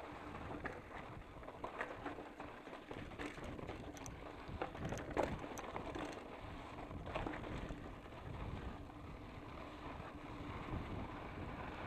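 Specialized Enduro Comp 650b mountain bike rolling down a loose gravel track: tyres crunching over stones, with scattered clicks and rattles from the bike and wind rumbling on the microphone.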